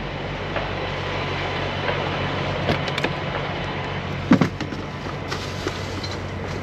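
A semi truck's diesel engine idling steadily, with a few clunks and knocks from rummaging in the tractor's side storage compartment; the loudest knock comes about four seconds in.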